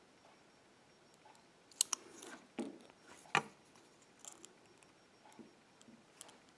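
Lock pick and tension wrench working the pins of a 6-pin BEST SFIC padlock core: faint, scattered metallic clicks and scrapes, with a few louder ticks about two to three and a half seconds in. The pins are being picked again toward the control shear line.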